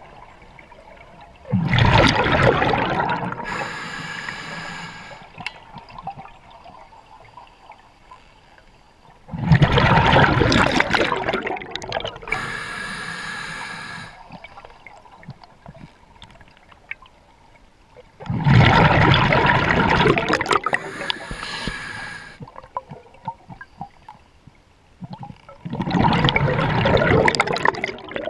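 Scuba diver breathing through a regulator underwater: four loud bubbling exhalations about eight seconds apart, each followed by a shorter hissing inhalation through the regulator.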